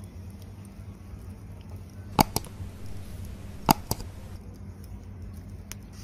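Cooking paneer tikka on a wooden skewer over a charcoal brazier: a steady low hum, broken by two quick pairs of sharp clicks, the skewer or embers knocking or popping, about a second and a half apart, and one fainter click near the end.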